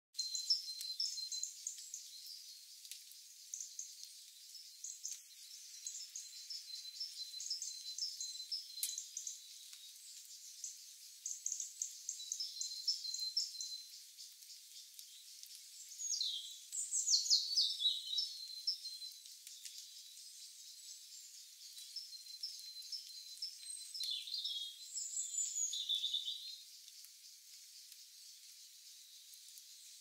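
Small songbirds chirping and twittering in quick, high trills. Louder falling song phrases come about halfway through and again near the end.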